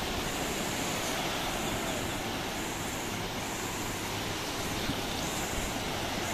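Sea surf breaking and washing through the shallows: a steady rushing noise.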